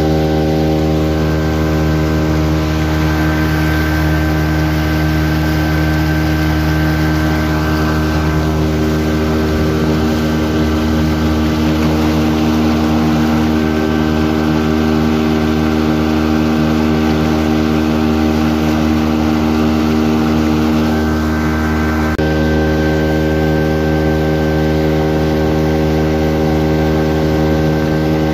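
Motorboat engine running steadily at cruising speed, a constant hum over the hiss of water rushing past the hull.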